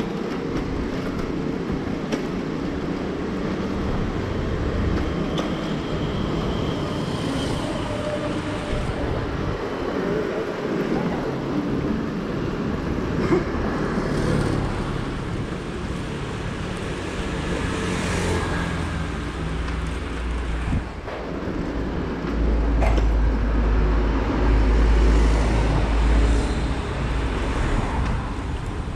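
Street traffic heard from a moving bicycle: motor scooters and cars passing, with wind rumbling on the microphone, heaviest for several seconds near the end.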